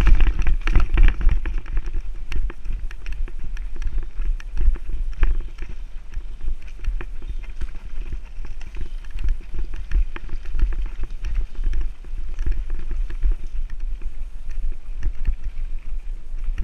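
Mountain bike ride down a dirt singletrack: tyres running over dirt and roots, with frequent rattling knocks from the bike and a heavy low rumble of wind on the microphone.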